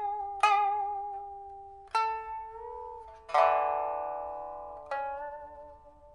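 A 2014 Liu Xiangxian suanzhi (blackwood) pipa, fitted with a new soundboard and frets, played slowly: four plucked notes, each ringing on and dying away, held with wavering vibrato and one bent note that rises and falls back. The fullest and loudest attack, a several-note chord, comes just past the middle.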